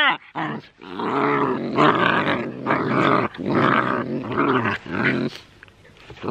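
Alaskan husky puppies growling at each other as they play-fight, in a run of about half a dozen growls with short breaks, stopping near the end.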